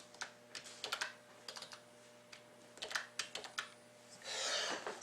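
Typing on a computer keyboard: irregular clusters of quick keystrokes, as the team names are entered into a randomizer list. A soft hiss comes in near the end.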